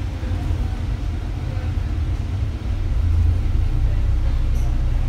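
Steady low rumble of a bus's engine and road noise heard from inside the moving bus, growing a little louder about three seconds in.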